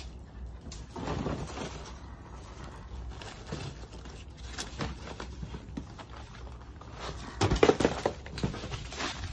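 Rustling and crackling of dry leaves and paper yard-waste bags, with a louder burst of crinkling about seven and a half seconds in.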